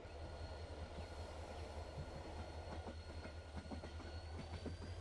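ES2G Lastochka electric train running, with a steady low rumble, a thin whine from the drive that starts to climb in pitch near the end as it picks up speed, and irregular clicks from the wheels on the track.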